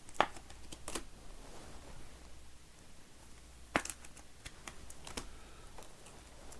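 Trading cards being handled and sorted on a table: light rustling with a few sharp taps as cards or stacks are set down. The loudest tap comes just after the start, and another comes near four seconds in.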